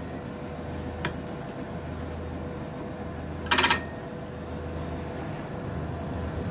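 A bell rings in one short rapid trill about three and a half seconds in, over the steady low hum of a ship's engine; a single faint tick comes about a second in.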